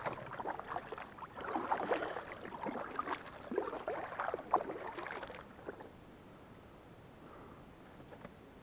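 Water splashing and trickling from strokes that move a small boat along. The strokes stop about five and a half seconds in, leaving only faint background.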